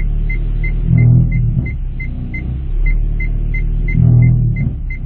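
Low droning rumble from the powertrain of a 2015 Hyundai Solaris 1.6 with a six-speed automatic, held on the brake while the accelerator is pressed gently at about 900–1200 rpm. It swells twice, about a second in and again near four seconds. The cause turned out to be a bent crankcase guard touching the rear lower powertrain mount as the engine rocks under load. A quick, even high beep sounds about three times a second throughout.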